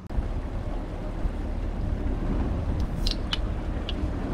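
Boat engine running steadily while underway, a low, even rumble mixed with wind and water noise. A few short, high chirps come through about three seconds in.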